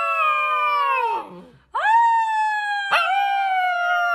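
Husky-type puppy howling in two long, high calls. The first slides down in pitch and fades out about a second in. The second starts shortly after, rises briefly and then sinks slowly.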